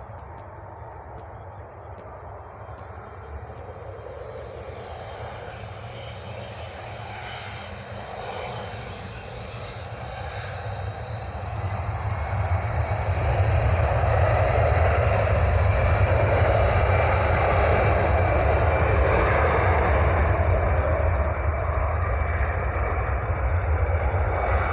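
Airliner's jet engines growing steadily louder as the plane approaches, then holding at a loud, steady roar from about halfway in.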